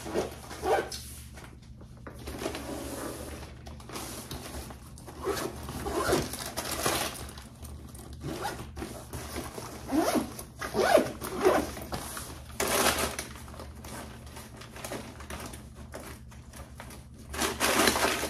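Zippers on fabric insulated lunch bags being drawn open, in a series of short zips along with the rustle of the bags being handled.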